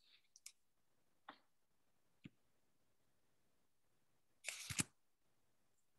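Near silence broken by a few faint clicks and a short burst of noise about four and a half seconds in.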